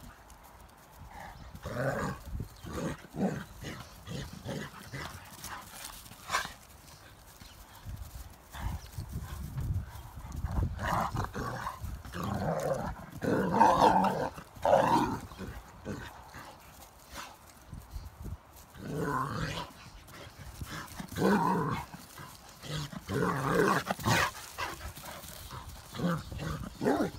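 A German shorthaired pointer and an Irish wolfhound playing rough, with bursts of play barking and growling. The vocalising is heaviest around the middle and again in the later part.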